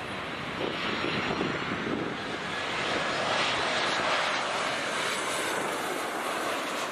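Boeing 737 jet airliner flying low overhead, a steady jet roar that builds to its loudest about three to four seconds in and then eases a little.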